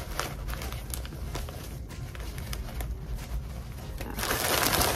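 Hands handling a satin drawstring bag, with faint rustles and small clicks, then a louder rustling starts about four seconds in as the bag is opened.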